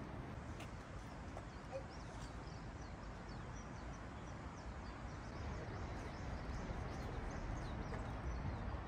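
Outdoor ambience: small birds chirping over and over, high-pitched, over a steady low rumble.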